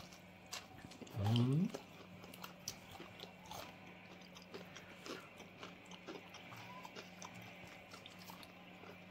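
A person chewing a bite of chicken wing: faint, irregular small clicks and smacks of chewing, after a short vocal sound about a second in, over a faint steady hum.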